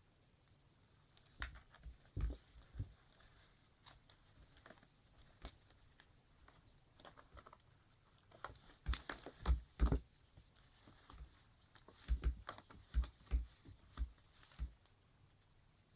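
A cat wrestling a plush toy hung on a string, inside a plastic laundry basket: irregular clusters of soft thumps and taps as its paws and body knock against the plastic. They come in three bouts, with quiet between.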